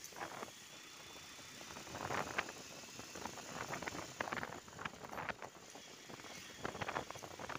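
Motorcycle riding along a street, heard from on the bike: a steady road-noise hiss with many irregular crackles and rattles. No clear engine note stands out.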